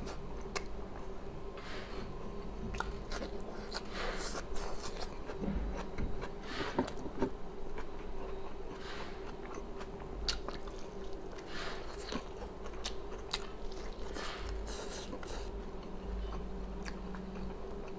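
A person biting and chewing food close to the microphone: irregular mouth clicks and smacks with a few crunches, over a faint steady hum.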